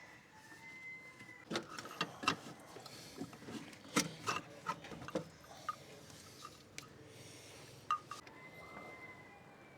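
Scattered metallic clicks and knocks of a 14 mm open-end spanner working on a diesel pre-filter's fittings. They come in a close cluster from about a second and a half to five seconds in, then thin out to a few single taps.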